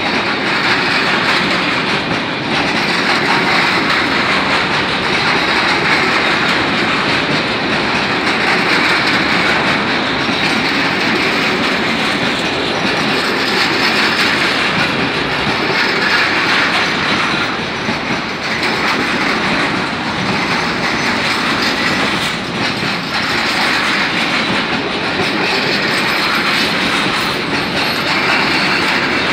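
Intermodal container wagons of a freight train rolling past at close range: a loud, steady rumble of steel wheels on rail.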